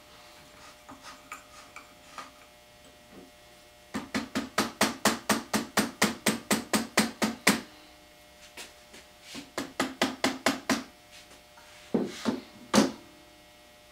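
Red non-marring hammer tapping on a Winchester 1903 .22 Winchester Automatic rifle to knock its takedown halves apart: a quick run of light taps, about five a second, then a second shorter run, then two louder single knocks near the end.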